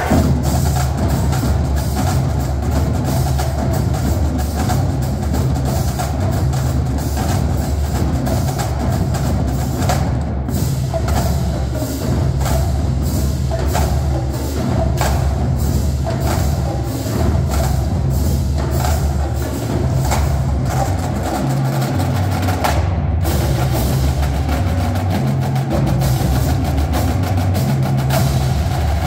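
Marching drumline playing: snare drums, tenor drums, pitched bass drums and cymbals in a dense, fast rhythm without a break. The bass drums step between different pitches underneath the snare and tenor strokes.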